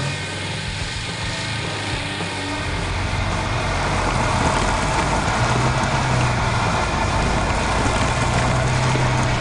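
Vehicle engine sound effect running, a steady low hum with noise over it, getting louder about three seconds in.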